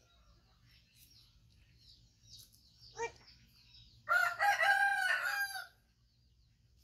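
A rooster crows once, about four seconds in, a single call lasting about a second and a half.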